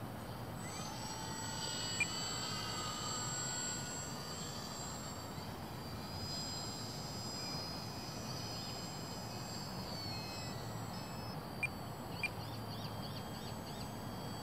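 Electric motor and propeller of a radio-controlled Cessna TTX foam model plane whining as it flies a slow pass, the pitch drifting up and down as it goes by. A few sharp clicks about two seconds in and near the end.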